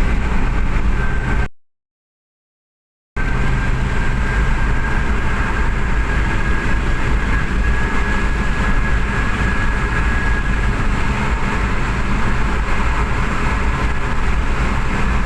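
Engine running steadily during an engine test, with a thin, steady high whine over a low rumble. The sound cuts out to dead silence about a second and a half in, then resumes about a second and a half later.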